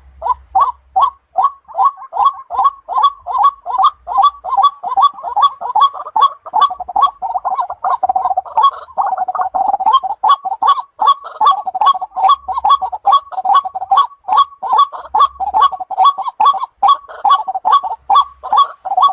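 White-breasted waterhen calling: an unbroken run of harsh, repeated notes, about three or four a second, blurring together for a couple of seconds about halfway through.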